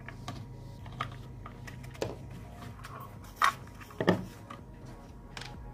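Light clicks and knocks of a screwdriver and a small motor being handled in a plywood boat hull, over a steady low hum; the two loudest knocks come about three and a half and four seconds in.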